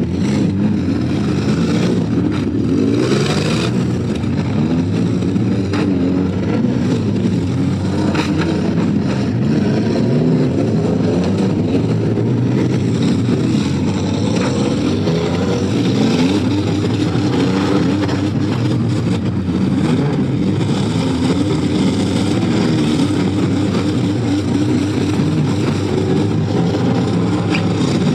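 Several demolition derby cars' V8 engines running and revving together, their pitches wandering up and down over each other, with a few short knocks.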